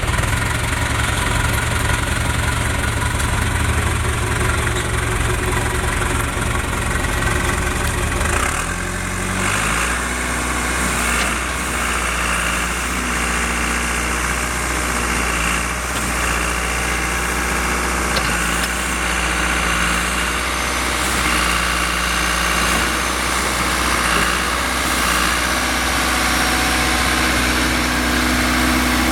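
John Deere 410C backhoe loader's diesel engine running at idle; about nine seconds in its speed drops and it settles into a lower, steady idle.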